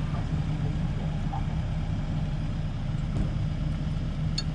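Diesel engine idling steadily, a low even rumble, with a faint click near the end.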